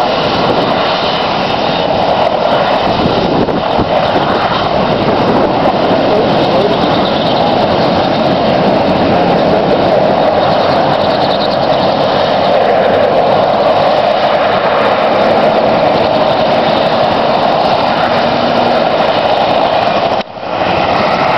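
U.S. Coast Guard MH-60 Jayhawk helicopter running on the ground with its rotors turning: a loud, steady turbine-and-rotor noise. There is a brief dropout a little before the end.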